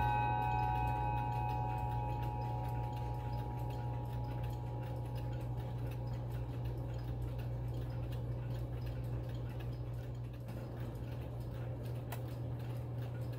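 Howard Miller triple chime mantel clock ticking steadily, with the last notes of its chime ringing out and fading in the first second or two.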